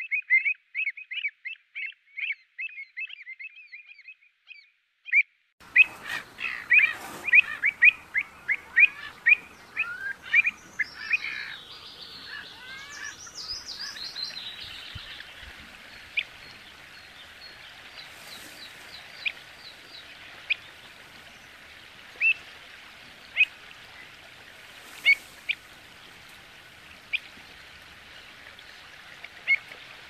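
Pied avocets calling: fast runs of short, sharp, high calls, several a second, that stop for about a second and a half some four seconds in and then start again. A few higher sliding notes come near the middle. After that the calling thins out to single sharp notes every second or two over a steady outdoor hiss.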